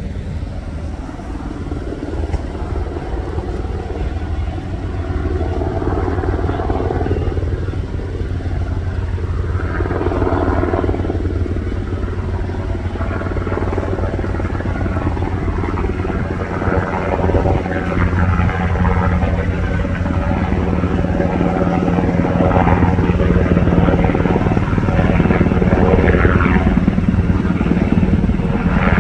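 Military utility helicopter approaching in flight: a steady low rotor and turbine rumble that grows louder as it comes closer.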